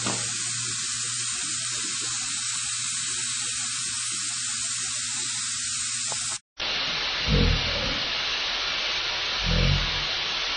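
Steady hiss with a low hum, cut off briefly about six seconds in. The hiss then resumes with dull, low thumps about two seconds apart: a Milford riveter's strokes slowed down in slow motion.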